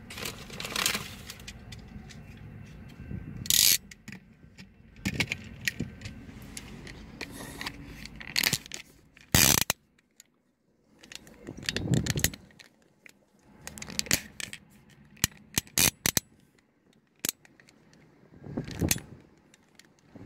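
Scattered clicks, rubs and bumps of a hand-held camera being handled, over low road-traffic noise, with a brief cut to silence about ten seconds in.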